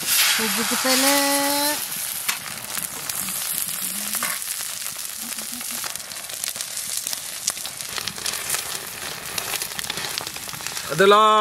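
Egg paratha sizzling steadily on a large flat iron griddle (tawa) over a wood fire, with a metal spatula pressing and scraping on the iron. A brief voice is heard about a second in.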